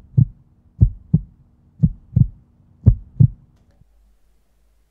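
Heartbeat sound effect from a channel intro: double thumps, lub-dub, about one pair a second, over a steady low hum that cuts off suddenly near the end.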